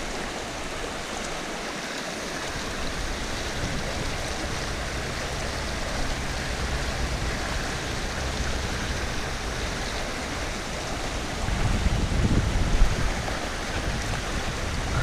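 The Garona river's current rushing steadily, a mountain river running with a good flow. A low rumble under it swells briefly a little past the middle.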